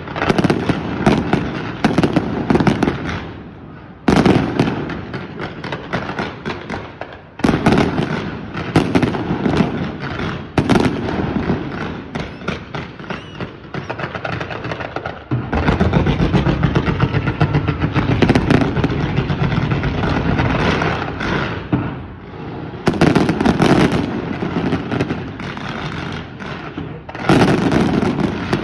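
Fireworks display: dense, rapid crackling and popping mixed with volleys of bangs. It comes in waves that surge every few seconds, with a longer unbroken stretch of rapid-fire crackle a little past halfway.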